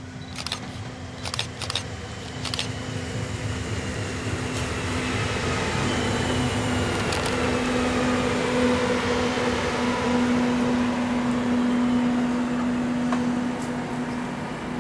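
Electric multiple unit passing close by on the line, its rumble building up and then easing off. A steady electric hum runs throughout, with whining tones that fall in pitch as it goes past. A few sharp clicks come in the first couple of seconds.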